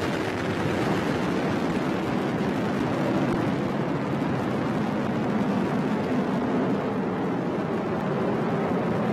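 Atlas V rocket climbing just after liftoff, its RD-180 main engine and two solid rocket boosters firing: a steady, unbroken roar.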